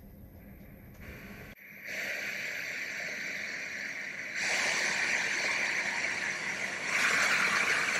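Hamilton T1 ventilator blowing gas through its breathing circuit and flow sensor during flow sensor calibration: a steady hiss that comes on about two seconds in and gets louder in two steps, at about four and a half and about seven seconds. A low rumble is heard before the hiss starts.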